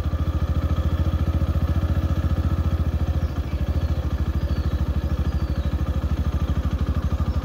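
Motorcycle engine running steadily at low speed, a continuous low thrum of evenly spaced firing pulses.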